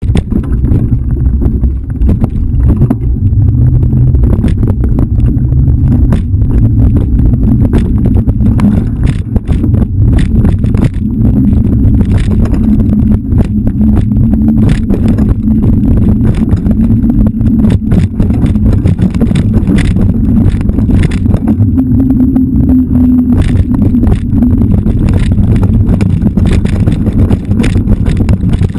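Mountain bike rolling fast down a rooty dirt forest trail, heard from a GoPro riding along. A loud low rumble and buffeting is broken by many sharp clicks and rattles as the bike jolts over roots and rocks, with a faint thin high whine on top.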